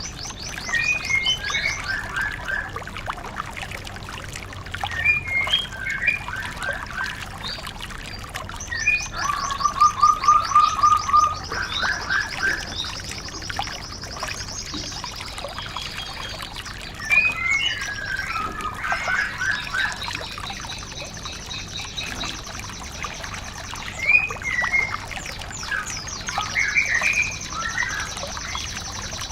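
Songbirds singing: a string of chirps, twitters and fast trills, some high and rattling, with a lower, louder trill about ten seconds in. The mix is several birds' songs strung together, as used to tutor a white-eye.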